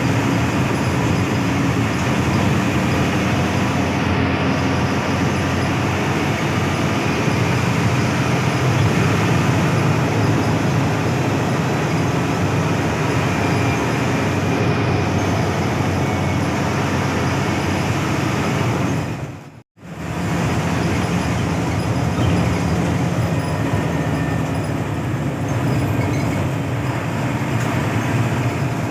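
Steady ride noise of a Hino AK8 front-engined bus on the move: a low engine drone under road and wind noise. The sound drops out for a moment about twenty seconds in.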